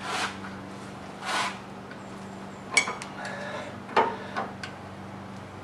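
Hand-threading a brass coupling nut onto a wooden handle on a stopped lathe: a few sharp metallic clicks and knocks as the nut and tools are handled, with two short soft hisses early on and a steady low electrical hum underneath.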